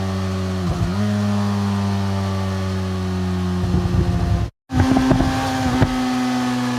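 Motorcycle engine running with a steady note whose pitch sags slowly as it decelerates. Past the middle the note turns rough and uneven, with a split-second total cut-out about four and a half seconds in, then settles back to a steady note.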